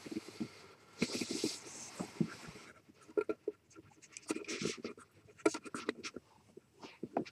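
A cat sniffing and brushing against a webcam at close range on carpet: scratchy rustling and irregular clicks, with a few short breathy bursts about a second in and again around four to six seconds.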